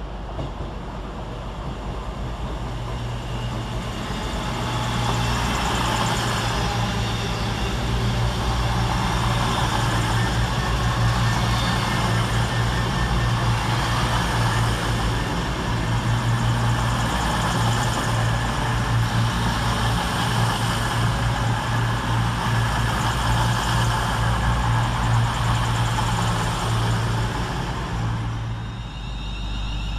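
Class 221 and Class 220 Voyager diesel multiple units running into the platform: the steady drone of their underfloor Cummins diesel engines, with wheel and rail noise. It builds over the first few seconds and falls away near the end.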